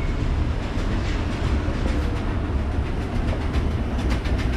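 Escalator running: a steady low mechanical rumble with faint clicks and clatter from the moving steps.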